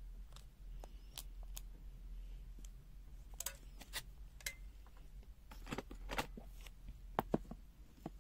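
Steel adjustable-angle welding magnet being handled: a scattering of light metallic clicks and knocks as its hinged arms are moved and it is turned over and set down, the sharpest knocks coming in a quick run near the end.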